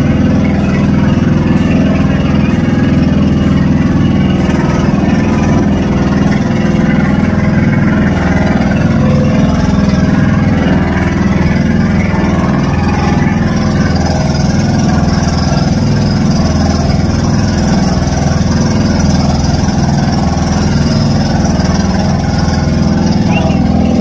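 Motorized outrigger boat's engine running steadily.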